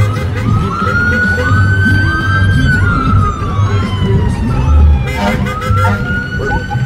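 Emergency vehicle siren wailing: a long tone that climbs, holds, then slides slowly down over a few seconds, climbing again about five seconds in, with a low rumble underneath.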